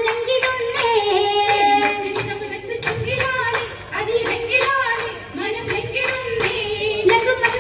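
An Oppana song sung through a microphone, with the dancers' sharp hand claps about twice a second keeping the beat.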